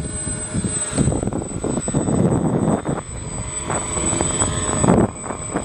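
Twin electric motors and propellers of a home-built RC plane running in flight, with a steady high-pitched whine over an uneven low rumble.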